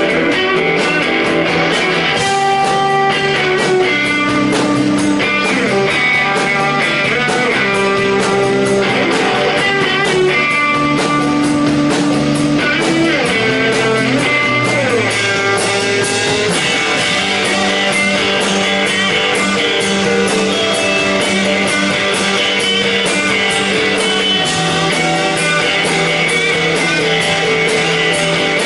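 Live rock band playing an instrumental passage: electric guitars ringing out sustained, changing notes over bass and a steady drum beat.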